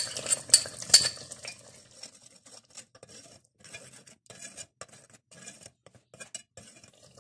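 A steel ladle clinking sharply against a glass bowl and an aluminium pot as almond paste is scraped out, then quieter, repeated scraping strokes as the ladle stirs the thick paste into the masala.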